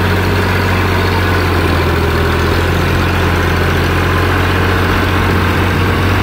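New Holland 480 tractor's diesel engine running steadily as it pulls a loaded sand trolley through soft, wet mud where it has been getting stuck.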